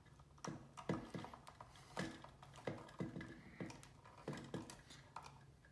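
A plastic wire nut being twisted tighter by hand onto the dimmer switch's wire connection, giving irregular small clicks and creaks.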